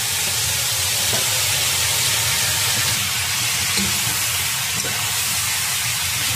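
Chopped goose pieces sizzling in a hot wok as they are stir-fried, with a ladle stirring through them over a steady frying hiss.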